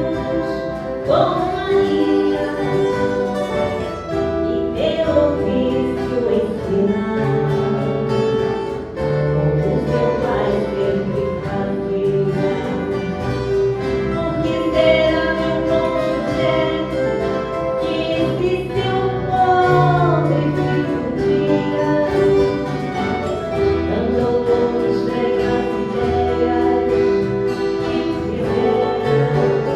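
Music: an ensemble of viola caipira guitars playing, with voices singing sustained, sliding melody lines.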